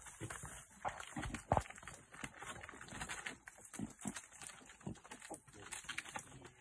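A leopard's claws scraping and knocking on tree bark as it climbs the trunk while dragging a carcass: a rapid, irregular run of scratches and knocks, loudest about one and a half seconds in.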